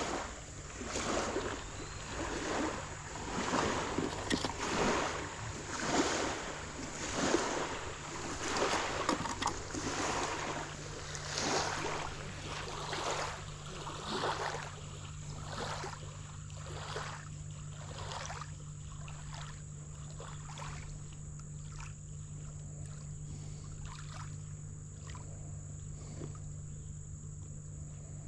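Water swishing and splashing in a steady rhythm, about one stroke a second, dying away about halfway through, over a steady low hum.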